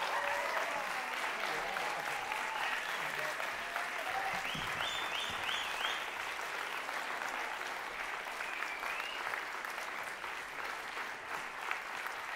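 Audience applauding steadily after a live band's song, with voices calling out over the clapping.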